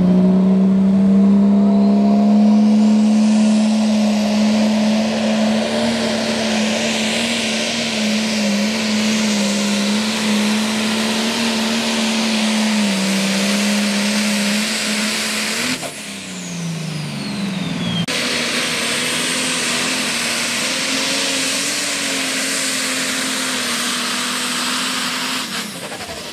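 Pulling tractor's engine running flat out under load as it drags the weight sled, with a high whine climbing over the first few seconds. About two-thirds of the way through, the note breaks off and the whine falls away. Then full-power running picks up again.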